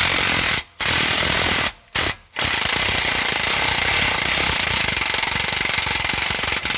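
3/8-inch Milwaukee cordless electric ratchet running a bolt in, a loud, fast rattling whir in bursts, with short breaks about a second and about two seconds in and one long run of over four seconds at the end.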